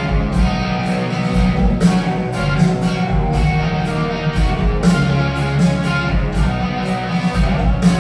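Live rock band playing loud, with electric guitar to the fore over bass guitar and drums, heard from the audience in the hall.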